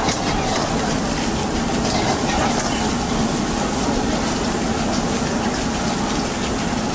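Steady rushing noise from a street-stall wok station during a fried-rice order, most likely its high-pressure gas burner running under the wok.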